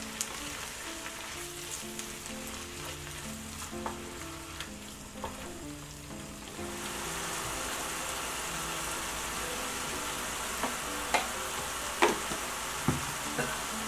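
Kimchi sizzling in hot oil as it is stir-fried with a silicone spatula; the sizzle gets louder about halfway through, and there are a few sharp knocks of the spatula on the pan near the end. Light background music plays throughout.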